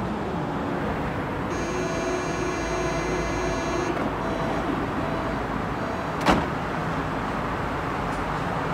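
Berlin U-Bahn GI ('Gisela') train waiting at a platform with its doors open. A high ringing tone and a short repeated warning beep sound, then the sliding doors slam shut with a single bang about six seconds in, over the steady hum of the standing train.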